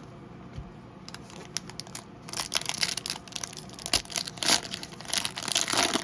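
Trading-card pack wrapper being crinkled and torn open by hand: a few small clicks, then dense crinkling from about two seconds in.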